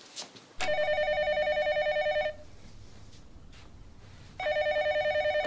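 Office telephone ringing twice with an electronic warbling trill. The first ring lasts about a second and a half, then after a pause of about two seconds a second ring stops after about a second as the phone is answered.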